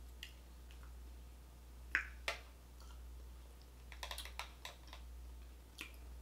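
A fork clicking and scraping against a clear plastic container as raw onions are picked out of it. Two sharp clicks come about two seconds in, then a quick cluster of light clicks about four seconds in, with a few single ticks after.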